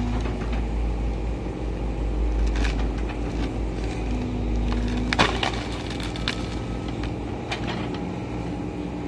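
Excavator diesel engine running steadily under load while its hydraulic stump shear bites into a tree stump, with wood cracking and splintering in several sharp snaps, the loudest about five seconds in.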